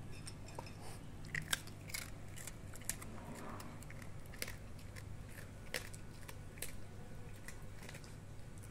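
Small dog chewing hard dry kibble: a run of sharp, irregular crunches that thins out near the end.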